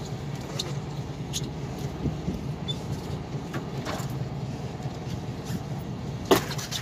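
Fishing boat's engine running steadily with a low hum, with scattered light knocks and clicks on the deck and one loud knock about six seconds in.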